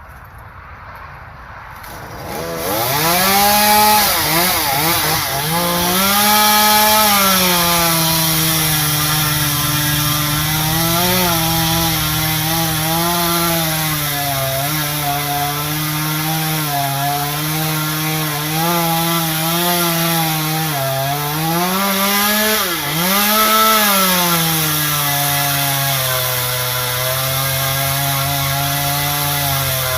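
Two-stroke chainsaw cutting wood, coming in loud about two seconds in. Its engine pitch rises and falls with throttle and load through the cut, with a sharp dip and rise near the end.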